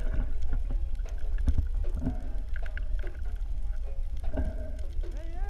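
Underwater sound as picked up by a camera in a waterproof housing: a steady low rumble of water with scattered clicks and knocks. Near the end, wavering tones that glide up and down come in.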